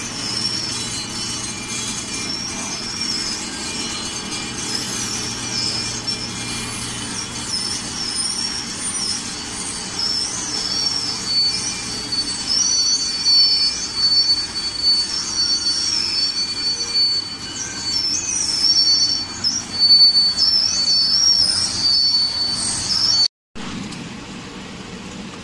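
Popcorn production machinery running with a high, wavering metallic squeal over a low hum, and a steady high whine joining in about halfway through. It cuts off abruptly near the end, giving way to a quieter, lower machine hum.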